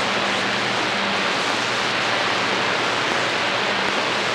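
Steady static hiss from a CB radio receiver tuned to channel 28, with a faint low hum under it.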